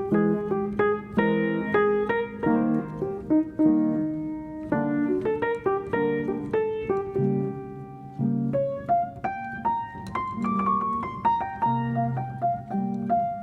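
Background piano music: a gentle melody of struck notes over lower chords.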